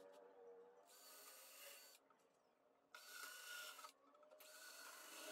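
Cordless drill-driver working into pine boards in three short bursts, with gaps between them.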